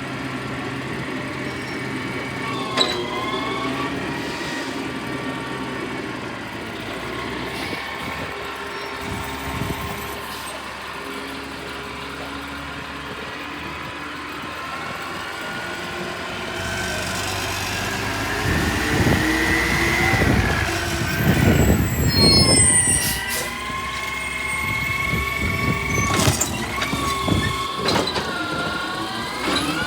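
Garbage truck running, with a whine that rises and falls in pitch as the engine revs up and settles, and a few sharp clicks. It is loudest about two-thirds of the way through.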